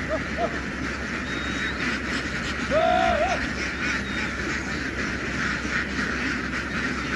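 A large flock of domestic ducks quacking together in a dense, continuous chatter, with one louder call standing out about three seconds in.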